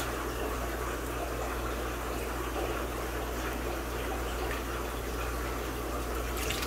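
Steady running and splashing water of a fish room's aquarium tanks, with a low steady hum underneath.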